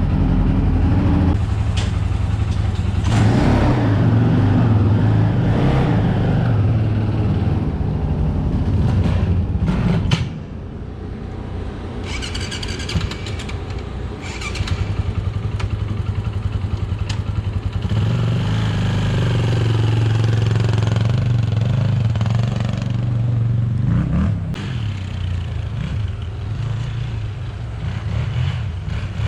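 Polaris 525 quad's engine running steadily. It drops quieter about ten seconds in and picks up again near eighteen seconds.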